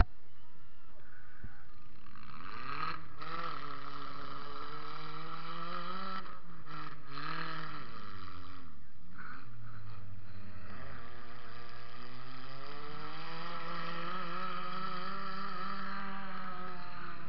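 Car engine revving up and down again and again, its pitch rising and falling over a second or two at a time.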